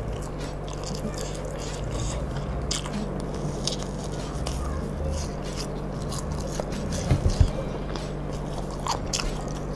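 Close-up eating sounds: biting into and chewing fried tofu, with many small wet mouth clicks. A few louder low thumps come about seven seconds in.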